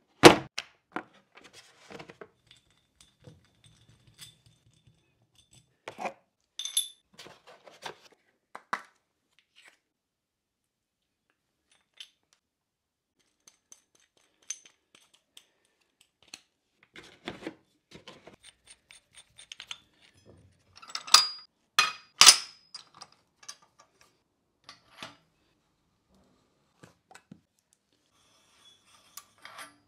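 Scattered clicks, clacks and metallic clinks of conduit-threading tools being handled on a wooden bench: a plastic tool case, a steel die stock with its die, and steel conduit picked up and set down. There is a sharp click right at the start and a cluster of louder clacks a little past the two-thirds mark.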